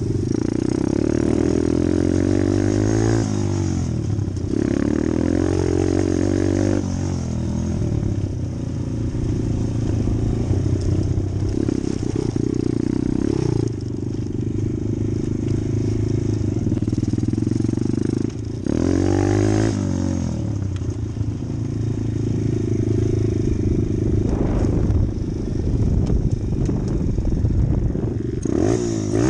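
Pit bike engine revving hard while being ridden, its pitch climbing and dropping back at each gear change several times.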